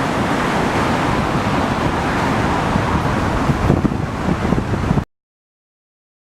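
Sea surf washing in with wind buffeting the microphone, a steady loud rush with a rumble underneath; it cuts off suddenly about five seconds in.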